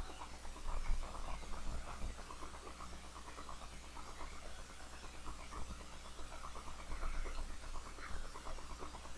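Faint, irregular scratching and clicking of a computer mouse being slid and clicked on a desk, over a steady low hum.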